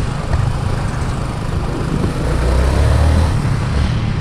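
Motorcycle engine running while under way, with a steady rush of wind and road noise. The low engine note grows louder a little past halfway through, then eases off.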